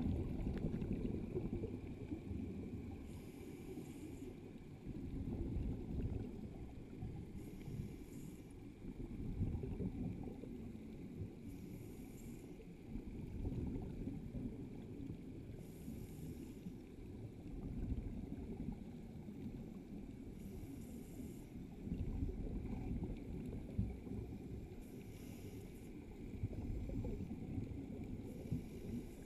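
Scuba diver breathing through a regulator underwater: a short bubbly exhale about every four seconds over a steady low rumble of moving water.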